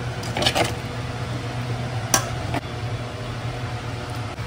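Metal spoon clinking against a stainless steel cooking pot as chicken masala is spooned onto rice: a few quick clinks about half a second in and one sharp knock a little after two seconds. A steady low hum runs underneath.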